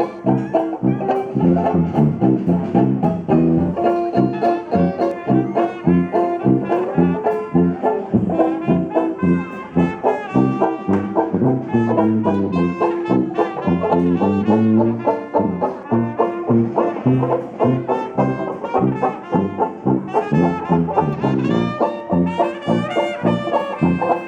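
Jazzy brass music, trombone and trumpet over a steady beat.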